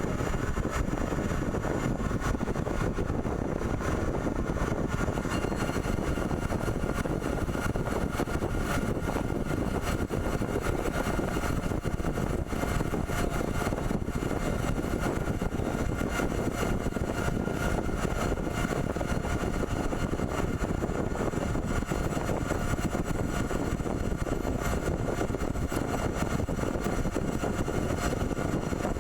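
CNC pipe threading machine running: steady machine noise with a few faint steady tones, unchanging throughout.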